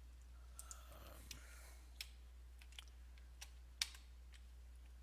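Scattered sharp clicks from a computer mouse and keyboard, about nine in all, the loudest one late on, over a low steady hum.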